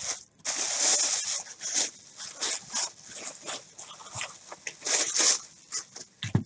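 Crumpled plastic bag crinkling and rustling in irregular bursts as hands dig a trading card out of it.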